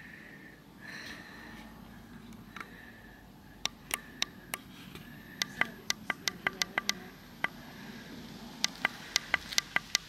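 Clicking of a light's brightness control as it is turned up: sharp clicks begin about three and a half seconds in, a few spaced apart, then quick runs of about six clicks a second in the middle and again near the end.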